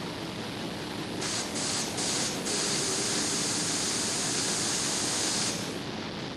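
Air hissing: a few short spurts about a second in, then a steady hiss for about three seconds that cuts off near the end, over a constant background rumble.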